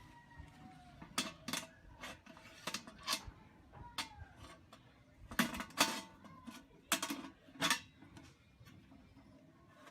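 Irregular metallic clinks and knocks, as of metal parts of the tank grill being handled and set in place, with a tighter cluster of louder knocks about halfway through.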